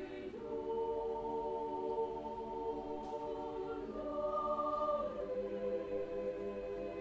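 Mixed choir singing a cappella in long held chords. The chord changes about half a second in, the voices move again around four to five seconds in, and a brief higher note sounds above the rest in between.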